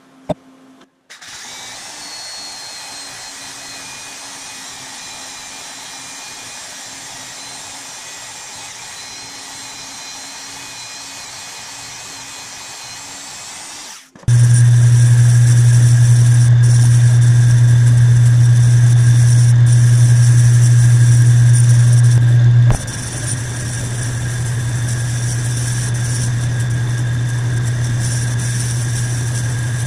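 Metal lathe running steadily while turning a metal part in a four-jaw chuck, a steady machine hum with fixed whining tones. It gets much louder about halfway through, then eases off somewhat near three-quarters of the way in and keeps running.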